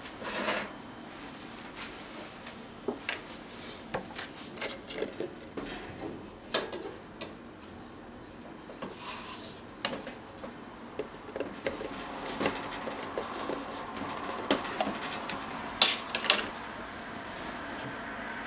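Metal measuring spoon stirring miso seasoning in a plastic measuring cup: irregular scrapes and clinks against the cup, with two sharper knocks near the end.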